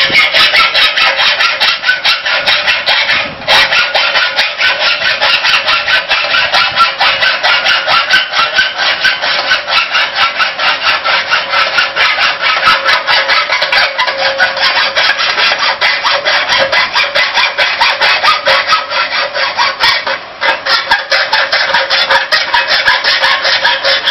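Roll forming machine running, with metal strip being drawn through the steel forming rollers: a loud, high-pitched rapid rasping and squealing. It breaks off briefly about three seconds in and again about twenty seconds in.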